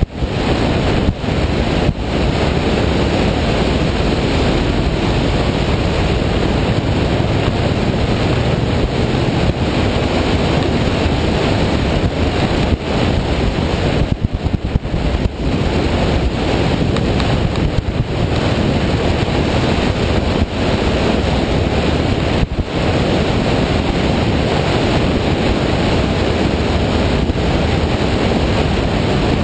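Loud, steady wind rushing over the microphone of a camera on a moving motorcycle at road speed, dropping off briefly a couple of times.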